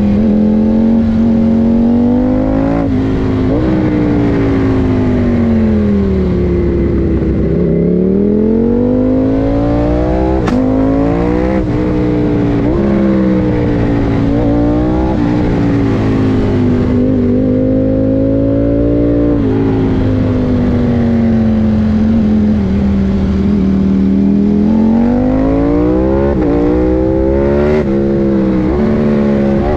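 KTM 890 Duke R's parallel-twin engine heard from onboard while riding, its pitch climbing and falling repeatedly as the rider accelerates, shifts gears and rolls off into bends, over steady wind rush.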